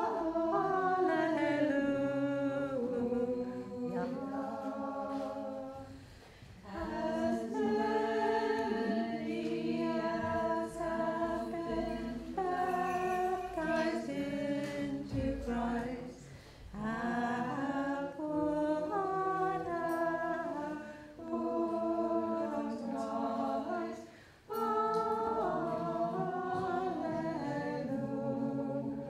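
Small church choir singing an Orthodox hymn a cappella, in phrases with short breaks about 6, 16 and 24 seconds in.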